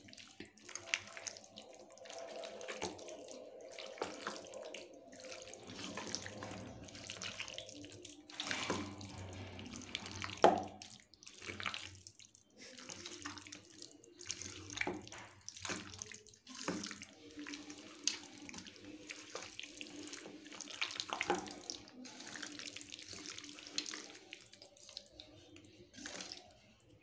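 A hand squishing and kneading raw chicken pieces in a thick, wet masala batter for chicken 65 in a steel bowl: irregular wet squelches, one after another, that do not stop.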